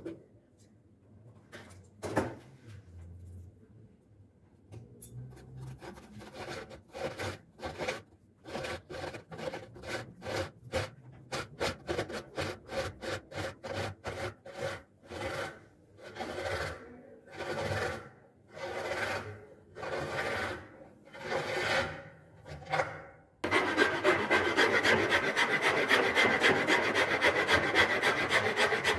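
Hand file rasping the bare willow handle of a cricket bat: slow, separate scraping strokes at first, then, about three-quarters of the way in, an abrupt switch to fast, continuous and louder filing strokes.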